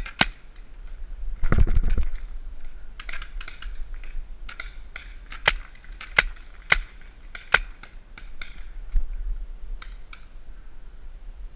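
Paintball marker firing a string of sharp single pops at uneven intervals, at times about one every half second, with a louder rough burst of noise about one and a half seconds in.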